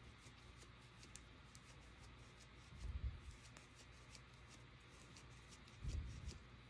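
Faint light ticking and rustle of a crochet hook working acrylic yarn into a chain, with two low bumps, about three and six seconds in.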